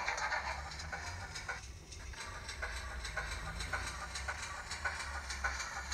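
Digital steam sound of a GWR Manor class locomotive playing from the tender and boiler speakers of a DCC sound-fitted Dapol OO gauge GWR Mogul model as it runs: steady exhaust chuffs, about three a second, over a low rumble.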